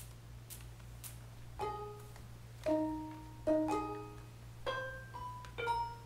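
Handbell choir beginning a piece: after a few light clicks, chords of handbells are rung about once a second from about a second and a half in, each ringing out and fading.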